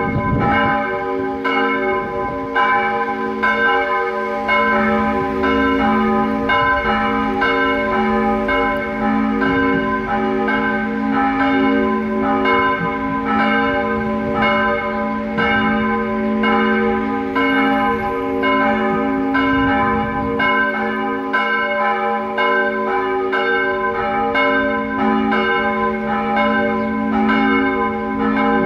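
Church bells, listed online as steel bells, ringing in a continuous peal: a fresh stroke about every two-thirds of a second, each overlapping the ringing hum of the ones before.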